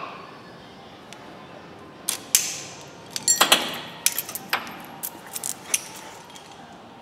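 Metal hand tools and parts being handled and set down: a scatter of sharp metallic clicks, knocks and short rattles, beginning about two seconds in.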